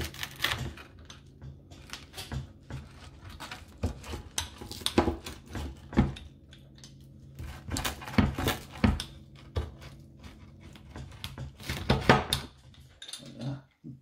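Rolling pizza cutter's metal wheel pressed and rocked through a baked pizza on a wooden board, with repeated irregular clicks and knocks of blade and board. A steady low hum runs underneath and cuts off just before the end.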